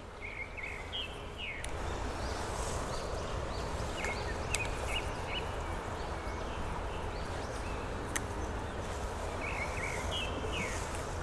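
Outdoor ambience by a trout stream: a steady rushing background that grows a little louder about two seconds in, with short bird chirps near the start, in the middle and near the end, and a couple of faint clicks.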